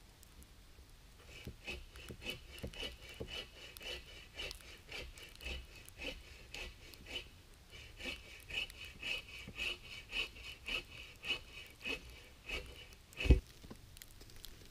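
Hand saw cutting through wood in quick, even strokes, about three a second, with a short break about halfway. One loud thump near the end.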